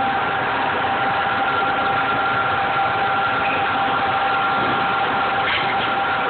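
Steady machine hum with a thin whine at two pitches, running evenly, with a few faint clicks near the end.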